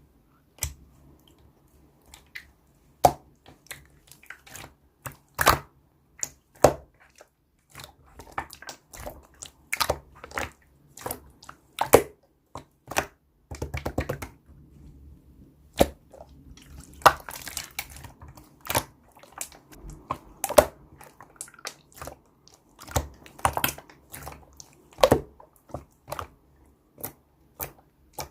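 Clear slime being squished and poked by hand, giving irregular sticky pops and clicks as air pockets burst, with short quiet gaps between them.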